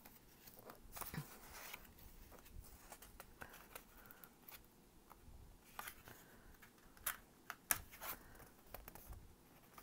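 Faint rustling of sheets of decorative paper being handled, with a few light sharp ticks and taps scattered through, the loudest near the end.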